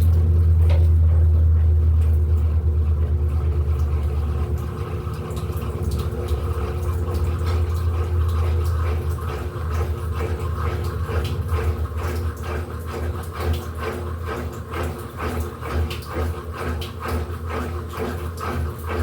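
Electrolux LED14 14 kg washing machine running: a steady low motor hum that slowly fades. From about six seconds in, a quick rhythmic swishing comes in, about three pulses a second.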